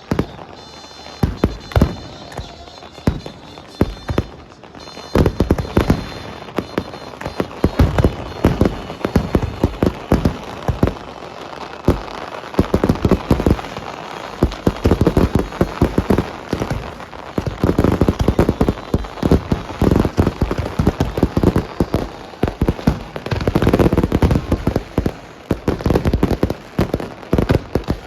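Fireworks going off in a barrage of sharp bangs and crackles: scattered at first, then a dense, unbroken run from about five seconds in.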